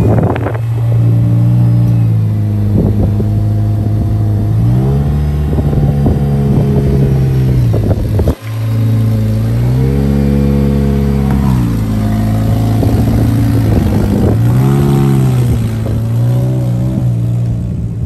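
Honda coupe's engine running loud and steady, with the throttle blipped several times so the pitch swells up and back down, about five seconds in, around ten seconds and again near fifteen seconds. The sound breaks off briefly after about eight seconds.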